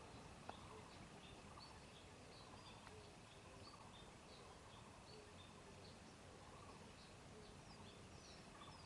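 Faint outdoor quiet with birds chirping over and over, short high calls coming every fraction of a second, and one faint click about half a second in.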